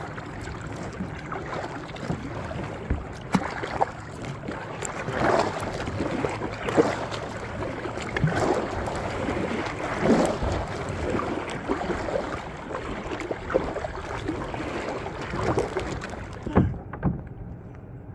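Kayak paddle strokes splashing through choppy water, a swell of splashing about every one and a half to two seconds. Near the end it drops to quieter water with a few knocks.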